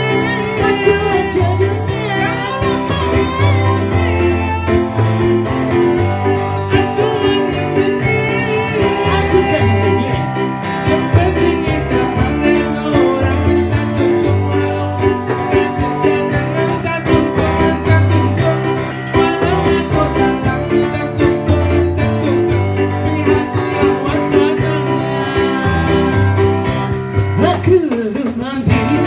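Live song: a man singing into a microphone over strummed acoustic guitar, with a repeating low bass line underneath.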